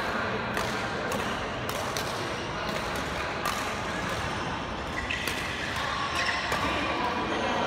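Badminton rackets striking shuttlecocks in an indoor badminton hall: sharp pops at irregular intervals, from this court and the neighbouring ones.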